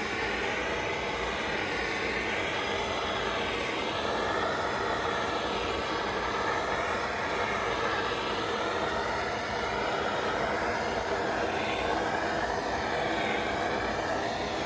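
Handheld gas torch burning with a steady rushing roar, its flame played over the wooden sign to scorch the surface.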